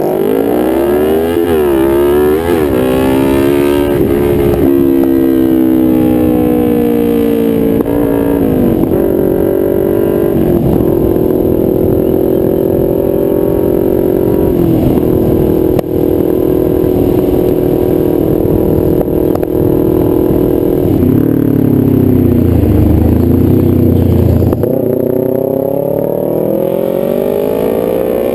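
Kawasaki Ninja 250R's parallel-twin engine through a nearly straight-piped DanMoto exhaust, heard from the rider's seat. It revs up and drops through two quick upshifts, then holds a steady cruise. Near the end it falls off under a deeper low rumble and then pulls up again.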